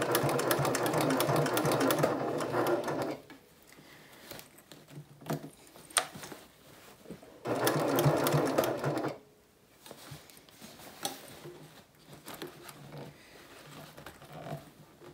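Janome HD9 heavy-duty sewing machine stitching through a thick, many-layered seam, running in two short bursts: about three seconds, then, after a pause, about a second and a half. Faint clicks in the pauses.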